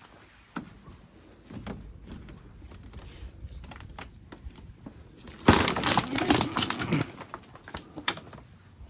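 Footsteps on a split-bamboo floor, the loose slats clicking and clacking underfoot, with a dense burst of clatter about five and a half seconds in that lasts a second and a half.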